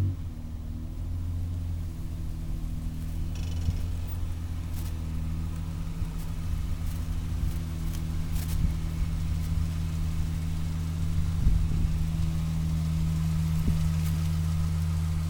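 Acura TL Type-S 3.2 L V6 running straight-piped with no mufflers, a low, steady exhaust drone at low revs as the car moves slowly out of a driveway and into the street.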